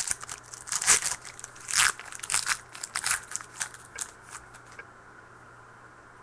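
Trading-card pack wrapper and cards being handled, crinkling in a quick run of short crackles that stops about five seconds in.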